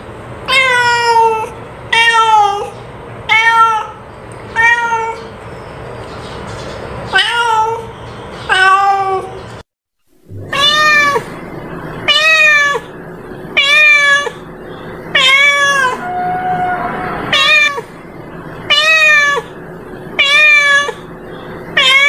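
A domestic cat meowing over and over, about one meow every second and a half, each call dropping in pitch at its end. The series breaks off briefly about ten seconds in, then starts again.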